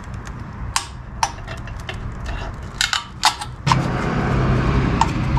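Screwdriver clicking and knocking against the metal of a 42RE transmission case while prying out the last servo, a handful of sharp taps. About two-thirds of the way in, a steady low hum with a hiss over it starts and keeps going.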